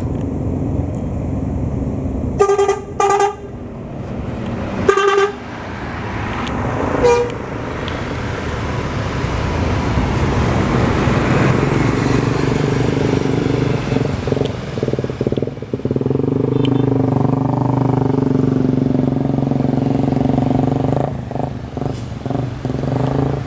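A bus's telolet air horn gives four short pitched toots in the first seven seconds. The heavy bus engine then runs loudly with a steady drone as it passes.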